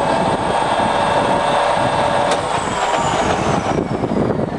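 Colchester Student 1800 centre lathe's geared headstock running at its top spindle speed of 1800 rpm: a steady gear whine over mechanical clatter.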